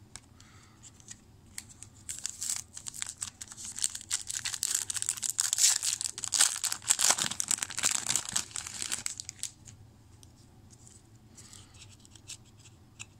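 A trading-card pack wrapper being torn open and crinkled, a dense crackling rush starting about two seconds in and dying away some seven seconds later.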